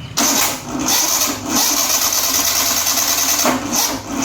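Maruti 800 SS80's three-cylinder engine being cranked by its starter motor in long stretches with brief breaks, not catching: the car is hard to start.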